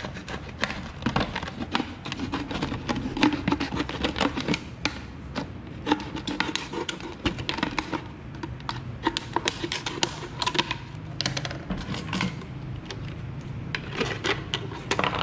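Utility knife cutting through a thin plastic drink bottle: a dense run of irregular clicks and crackles as the blade saws the plastic and the bottle crinkles in the hands. Near the end, scissors take over the cut.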